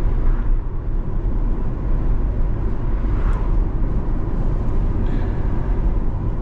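C8 Corvette cruising at a steady speed: a continuous low engine and road rumble with no revving.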